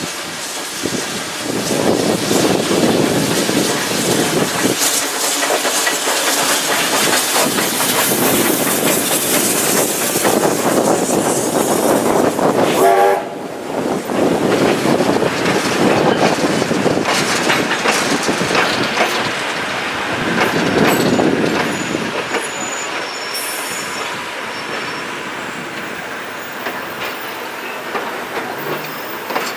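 A steam-hauled mixed goods train rolling past close by, its wagons' wheels clattering over the rail joints, with a thin high wheel squeal in the second half.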